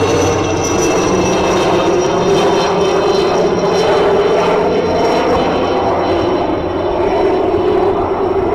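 Aérospatiale Alouette III helicopter flying overhead: the high, steady whine of its Turbomeca Artouste turbine over the rumble of the rotors. The whine drops slightly in pitch as the helicopter moves away, and it grows a little quieter in the second half.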